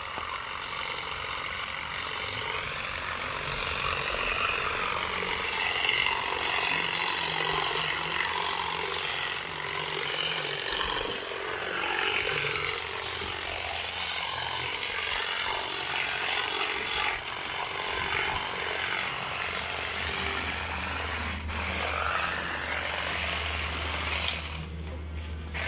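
New push-button-start lawn mower running steadily while cutting grass, its pitch wavering a little as it is pushed along.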